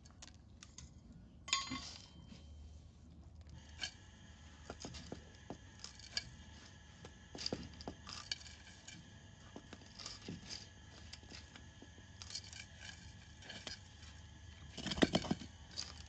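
Gloved hands scooping gritty potting mix with ceramsite granules from an enamel basin into a large glazed ceramic pot: irregular small clicks and scrapes as the soil and granules fall in, with a sharp ringing clink about a second and a half in and a louder flurry near the end.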